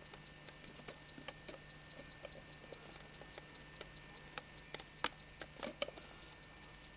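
Faint clock-like ticking, a few light clicks a second, with several louder clicks about five seconds in, over a low steady hum.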